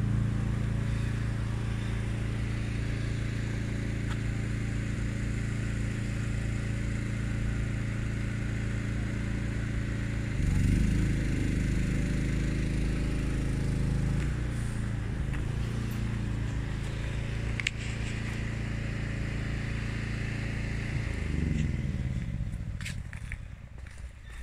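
An engine running steadily, revving up about ten seconds in, settling back, and revving again near the end before it fades away. A few light knocks come as it dies down.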